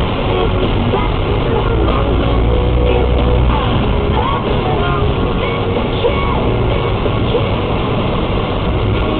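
Rock music playing over a steady low rumble.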